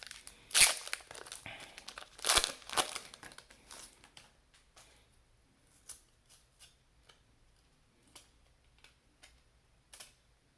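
A trading card pack's wrapper being torn open and crinkled, with two loud rips in the first few seconds, then the cards inside being handled with soft, scattered clicks.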